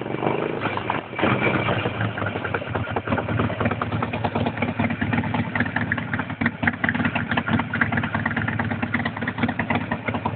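Harley-Davidson Nightster V-twin engine running through its exhaust, with a brief throttle blip about a second in, then a steady, loping idle.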